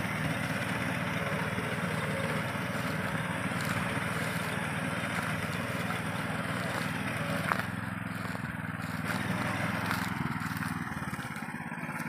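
Small engine of a walk-behind reaper running steadily as it cuts standing wheat.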